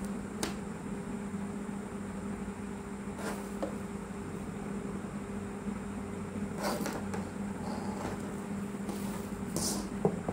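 Steady low hum with a few soft knocks and rustles as a metal-cased battery charger and its leads are handled and turned over.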